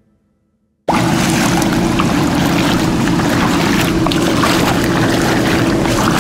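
Tohatsu M 9.8 two-stroke outboard motor running steadily under way on a PVC inflatable boat, with wind and water noise over its hum. It starts abruptly about a second in, after a moment of silence.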